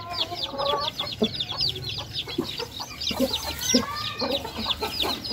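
Newly hatched chicks peeping nonstop, many short high falling peeps a second, with a hen's lower clucks mixed in.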